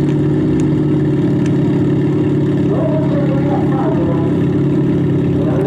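Demolition derby car engine running steadily, with faint voices in the background.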